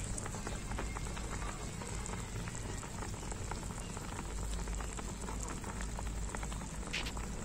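Braising sauce of scad fish simmering on low heat in a pan: a steady bubbling with many small pops and crackles, and one sharper pop near the end.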